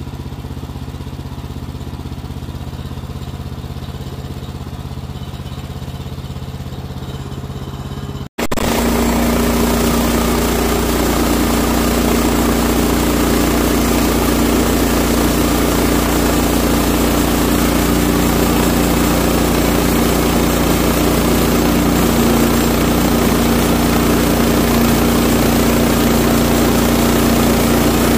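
Bandsaw mill's engine running steadily at a moderate level; after a sudden break about eight seconds in, it runs louder with a strong steady hum, the engine at higher throttle.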